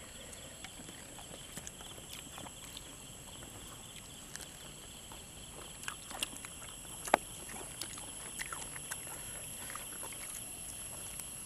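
Steady high insect drone, with soft smacks and small clicks of people eating with their hands; one sharper click about seven seconds in.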